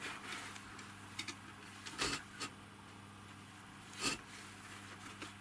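A low steady hum with a few short soft knocks and rustles, the loudest about two seconds and four seconds in.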